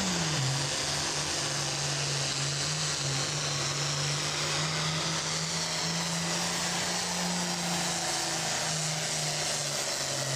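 Diesel engine of a pulling tractor running hard at full power under the load of a weight-transfer sled, a loud steady drone with a hiss and a faint high whistle above it. The engine pitch sags about half a second in, then holds.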